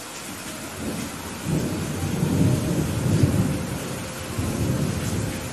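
Steady heavy rain with a low rumble of thunder that builds about a second in, is loudest around the middle and fades near the end.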